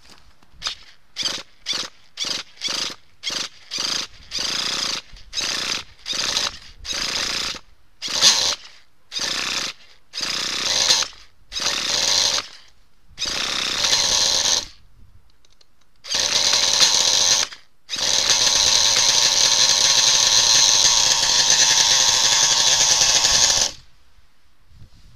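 Hand-held electric starter spinning a nitro RC truck engine in short bursts, about two a second at first, then longer spins of a second or more, ending in one spin of nearly six seconds that stops suddenly. The engine is being cranked to start and does not keep running.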